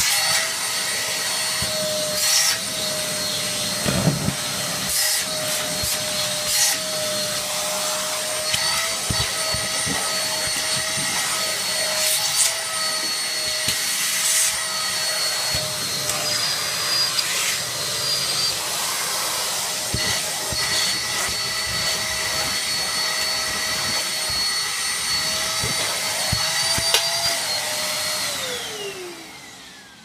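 Cheap ash vacuum cleaner running with a steady high whine while picking up rubbish off the carpet through a long pipe and crevice tool, with scattered sharp clicks. Near the end it is switched off and the motor winds down in a falling whine.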